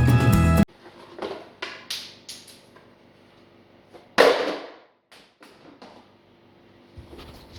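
Background music that cuts off abruptly under a second in, then a few light knocks and clicks and one loud clank about four seconds in, from parts and tools being handled while a car's front end is taken apart.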